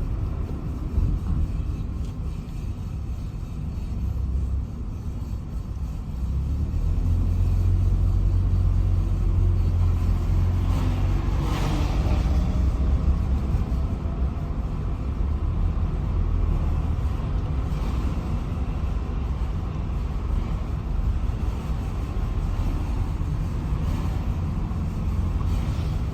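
Car driving forward with a steady low road rumble and a loud metallic scraping from a wheel's brake, caused by a small stone caught in the brake. A brief brighter swell of noise about halfway through.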